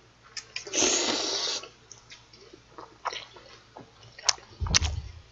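A long, loud slurp of spicy Paldo Bibimmyeon cold mixed noodles being sucked up with chopsticks about a second in, followed by wet chewing clicks and a low thump near the end.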